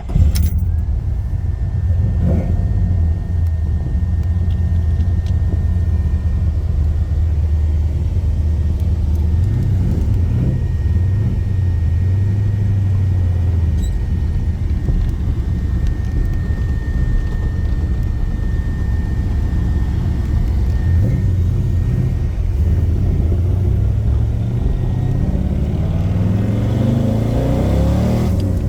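1979 Chevrolet El Camino's 383 stroker V8 with headers and dual exhaust, starting right at the beginning and then idling steadily, with a faint steady high whine alongside. Near the end the engine note rises as the revs come up.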